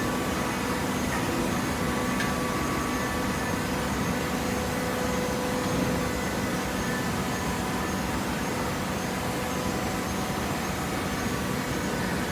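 Hydraulic waste paper baler running: a steady machine hum with a few faint held tones, without clear strokes or breaks.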